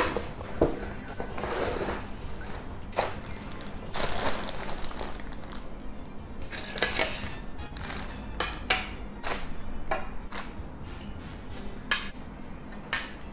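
Cardboard figure box being opened and a clear plastic bag of figure parts crinkling as it is handled, with scattered sharp clicks and taps from the box and the plastic pieces.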